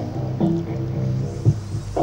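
Instrumental music: sustained pitched tones with a rhythmic beat.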